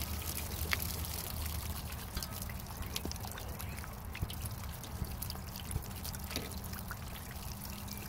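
Water pouring steadily out of the drain opening of an Atwood 6-gallon RV water heater and splashing onto the compartment floor, with faint scattered drips. The tank is being flushed with city water through a wand pushed into the drain, washing out loose white scale.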